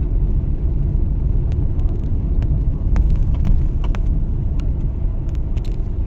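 Road noise heard from inside a moving car's cabin: a steady low rumble of tyres and engine, with a few faint short clicks scattered through it.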